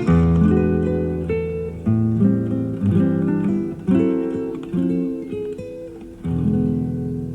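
Classical guitar played live: plucked chords and melody notes, each new chord struck roughly every second or so and left to ring and fade. Heard from an FM radio broadcast recorded on cassette tape.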